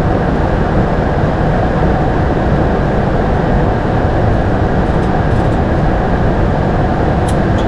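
Steady rushing noise of airflow and engines heard inside the cockpit of an Airbus A220-300 on its approach to landing, with a few faint clicks near the end.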